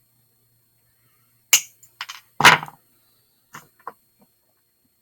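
About six sharp clicks and knocks of small metal jewelry tools and wire being handled on a work surface, the loudest about two and a half seconds in.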